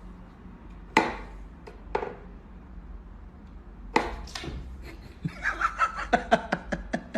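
Sharp knocks: single ones spaced a second or two apart, then a quicker run of knocks near the end.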